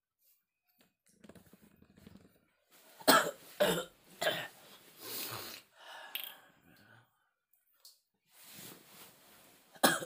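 A man coughing: a quick run of three harsh coughs followed by a longer rough one, then another sharp cough near the end. A chesty cough from a cold and fever (masuk angin).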